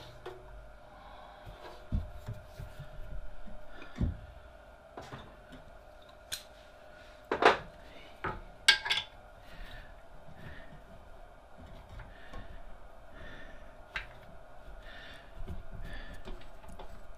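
Scattered knocks and clinks of V-belts being worked by hand onto the stepped metal pulleys of a pillar drill, with two louder clanks about halfway through, over a faint steady hum.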